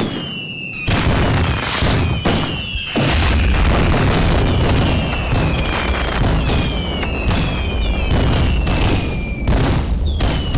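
Fireworks going off thick and fast: repeated bangs and booms overlapped by many whistling fireworks, each whistle sliding slightly down in pitch. A deep rumble thickens the bangs from about three seconds in.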